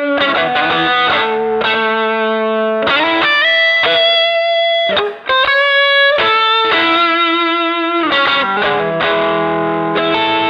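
Electric guitar played through an MXR Dynacomp compressor pedal: a run of picked notes with long, even sustain, a brief break about five seconds in, then several notes ringing together near the end.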